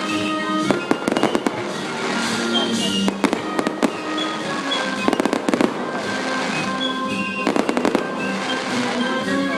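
Fireworks going off in repeated clusters of sharp cracks, over music playing throughout.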